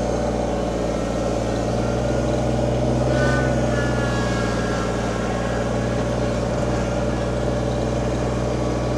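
Kubota BX25D compact tractor's three-cylinder diesel engine running steadily as the tractor drives off, with a faint whine joining about three seconds in.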